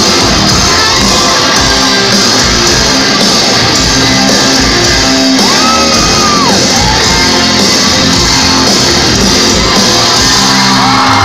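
Rock band playing loud live in a large hall, with voices shouting along over a steady beat.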